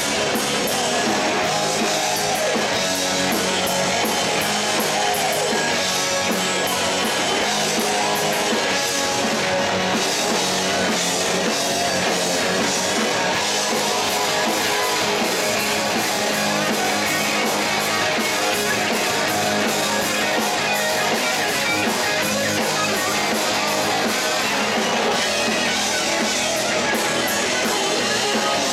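Live rock band playing loud, with distorted electric guitars and a drum kit, as heard from the audience.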